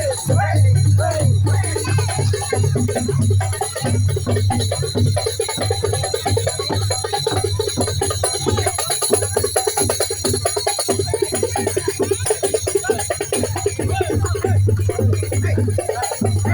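Loud procession music with a fast, dense beat and constant jingling bells, with a voice singing over it at the start and again near the end.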